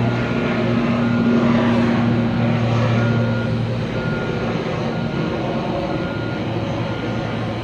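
Silver Airways ATR twin turboprop climbing out after takeoff: a steady low propeller drone that fades as it flies away. Over it a vehicle's reversing alarm beeps about once a second.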